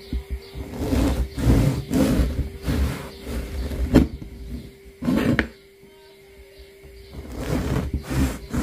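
Serrated bread knife sawing through a crusty loaf on a wooden cutting board: a run of quick rasping strokes, two sharp knocks of the blade on the board midway, a brief pause, then more strokes near the end. A faint steady hum runs underneath.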